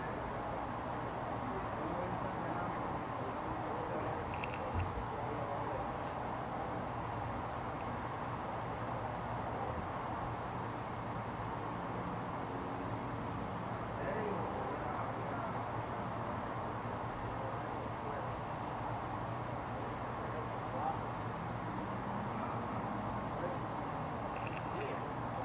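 A cricket trilling steadily in an even, pulsing high note, over a steady low hum and a dull background murmur.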